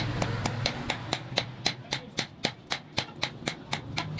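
Blacksmith's hand hammer striking a thin steel sickle blade on an anvil in quick, even blows, about four a second, each with a short metallic ring.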